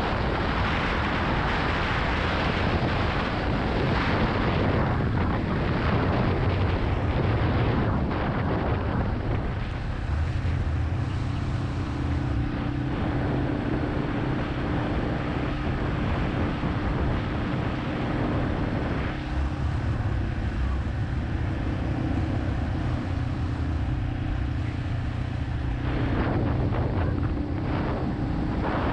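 Yamaha XT250's air-cooled single-cylinder engine running under way, with wind rushing over the microphone. The wind is heaviest for the first ten seconds or so, and the engine holds a steady note from about ten seconds in until near the end.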